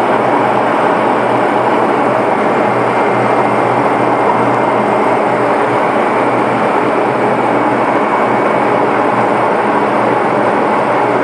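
Hammelmann high-pressure water-jetting pump running steadily and loudly, a dense rushing noise over a low hum. The uploader reports this pump as making abnormal noise while the high-pressure gun is operated.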